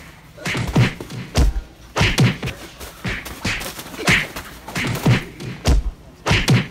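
Large rolls of bubble wrap being swung and smacked against each other and against bodies in a play fight: a quick run of about a dozen dull thumps, roughly two a second.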